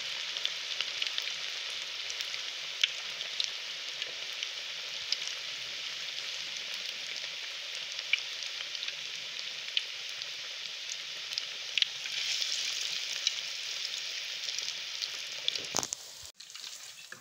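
Onion and cabbage pakoras deep-frying in hot oil: a steady hissing sizzle with scattered crackling pops. The sizzle cuts off abruptly near the end.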